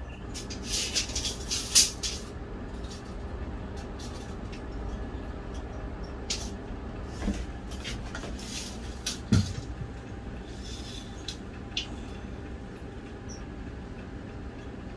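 Sporadic clicks and knocks of tools and lumber being handled on a plywood subfloor, with footsteps; a cluster of sharp clicks in the first two seconds and dull thuds of wood set down about seven and nine seconds in. A steady low hum runs underneath.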